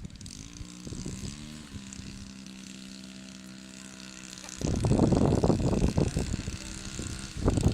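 Engine of a radio-controlled scale Sopwith Pup model airplane droning in flight, its pitch dipping and recovering about a second in. From just past the halfway point, strong wind gusts buffet the microphone and drown it out.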